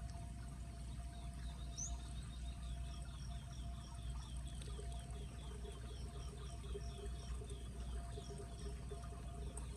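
Floodwater pouring steadily into a cleared street storm drain. From about three seconds in, a rapid series of faint high chirps sounds over it, about three or four a second.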